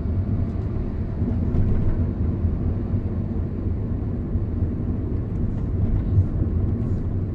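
Steady low rumble of a car driving along a city road, engine and tyre noise heard from inside the car.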